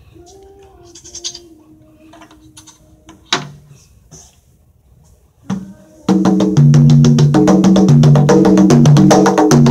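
A pair of conga drums played by hand: a couple of single strokes, then from about six seconds in a loud, fast, continuous rhythm of pitched open tones and slaps across both drums.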